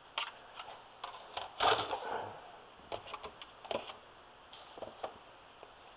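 Light clicks and knocks of plastic and metal as a laptop's removed optical drive and the laptop itself are handled, with a louder clatter about two seconds in.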